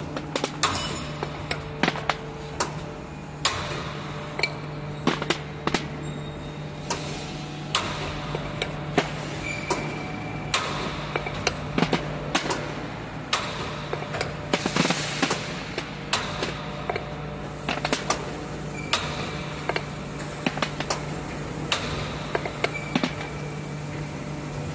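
DYSF-50 automatic metal bar cutting machine running with a steady low hum, with frequent irregular sharp metallic knocks and clanks as it cuts steel bar and the cut billets drop into a steel bin.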